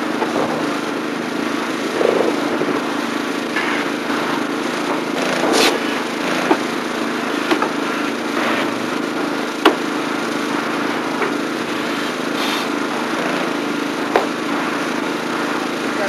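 A small engine running steadily, with a few sharp knocks of construction work at irregular intervals.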